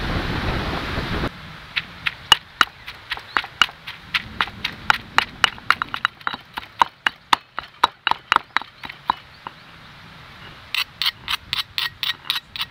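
Stone pestle pounding wet chilli paste in a stone mortar: a run of sharp knocks, about four a second, a short pause, then a quicker run near the end. It opens with a steady rushing noise that cuts off after about a second.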